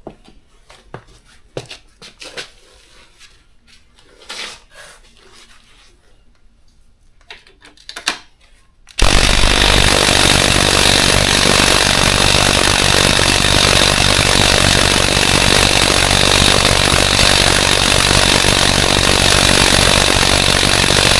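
Small tool clicks and knocks, then about nine seconds in a cordless impact driver starts hammering continuously and loudly on a stuck centre-stand nut and bolt, which does not free.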